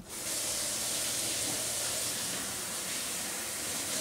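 Kitchen tap turned on and running in a steady stream, rinsing out the emptied sauce pouch. The water starts suddenly and runs evenly.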